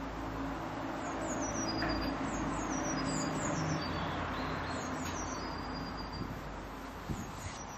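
Steady rumble of distant road traffic, with a small bird singing high, short, falling chirps in quick groups over it.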